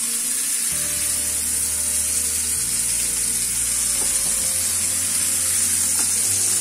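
Basa fish fillets sizzling steadily as they shallow-fry in hot mustard oil in a nonstick pan, with a wooden spatula lightly tapping the pan a couple of times as the pieces are nudged to be turned.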